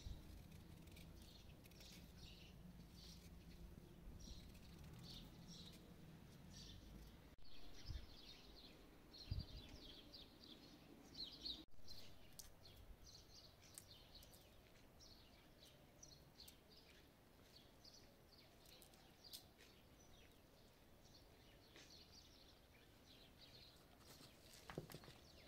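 Small birds chirping faintly, many short high chirps scattered throughout, with a couple of soft low thumps in the first half.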